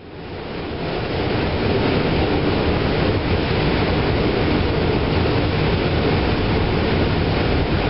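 New York City subway car running along the track, heard from inside the car: a steady rumble and rush of wheels on rails. It fades in over the first second or so.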